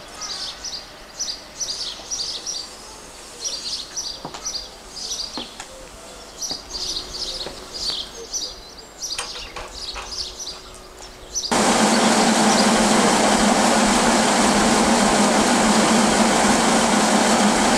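Songbirds chirping over a quiet background with a few faint clicks. About eleven and a half seconds in, the sound switches abruptly to a loud, steady mechanical drone with a low hum.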